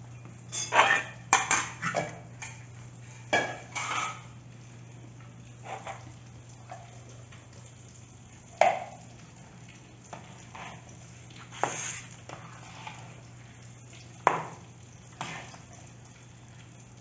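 Metal spoon clinking and scraping against a stainless steel bowl as potato salad is stirred: a quick run of sharp clinks in the first few seconds, then single knocks every couple of seconds.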